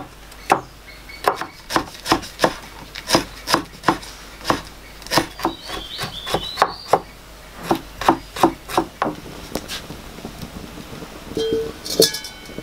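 Cleaver chopping sliced ginger on a wooden cutting board: sharp, even knocks about twice a second that thin out and stop about nine seconds in.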